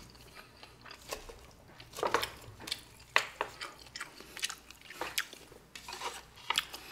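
Close-up chewing of a mouthful of hamburger steak in sauce: irregular wet mouth sounds, mixed with a few light clinks of a fork and chopsticks against a stainless steel bowl.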